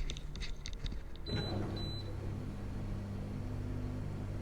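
Franke dishwasher starting its program: two short electronic beeps about a second in, then a steady low hum as its pump motor starts running.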